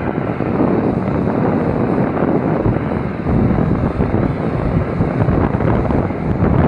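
Sonalika 750 diesel tractor engine running hard under heavy load while hauling a heavily loaded trailer, mixed with steady wind buffeting on the microphone.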